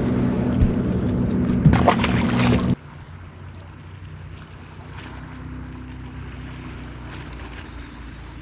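Boat motor running with a steady hum that drops off abruptly a little under three seconds in, leaving a much quieter low hum with faint wind and water noise.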